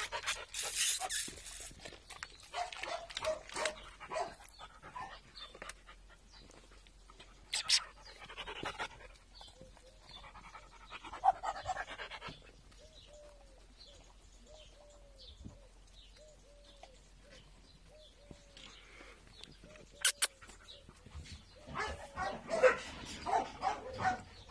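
Mixed-breed dog whining in a run of short, arching whimpers, more than one a second, through the middle stretch, with panting near the start and end.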